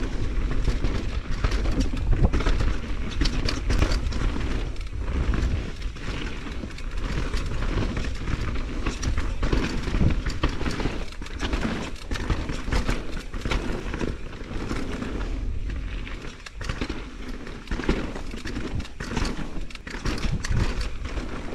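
Mountain bike riding fast down a dirt trail: tyres rolling over dirt and rocks and the bike rattling with many sharp knocks over bumps, under a steady rumble of wind on the camera microphone.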